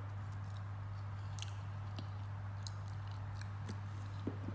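Someone chewing a last mouthful with closed lips, a scattering of short small clicks, over a steady low hum.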